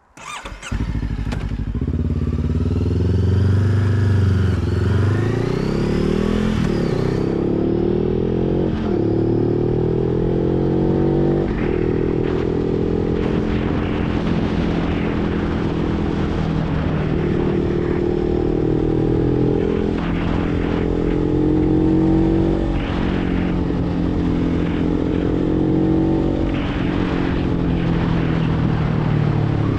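Motorcycle engine pulling away and accelerating through the gears, its pitch climbing and then dropping at each shift, about six, nine and eleven seconds in. After that it runs at a fairly steady cruise with small rises and falls in engine speed.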